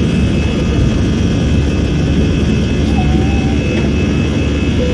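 Cabin noise of an Airbus A320-214's CFM56-5B turbofan engines at takeoff thrust in the initial climb, heard inside the cabin at a window over the wing: a loud, steady rumble with steady whining tones above it.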